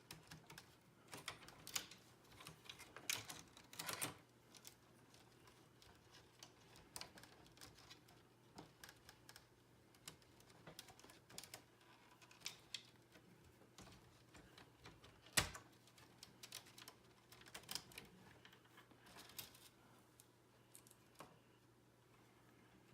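Faint, scattered plastic clicks and taps as a pachinko machine's wire connectors are unplugged and the wires are pulled out of a plastic clip, with one sharper click about fifteen seconds in.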